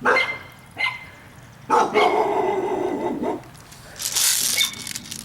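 A dog barking: two short barks near the start, then a longer run of barking in the middle. About four seconds in there is a brief hissing burst.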